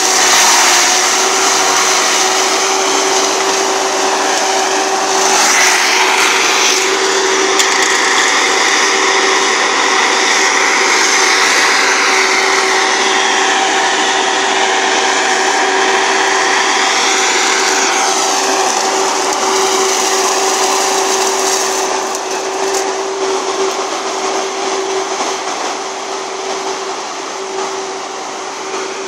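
Galotrax 300 tracked forestry mulcher running with its rotor head grinding brush and branches: a steady hum under a rasping, grinding noise that wavers in pitch, easing off a little in the last several seconds.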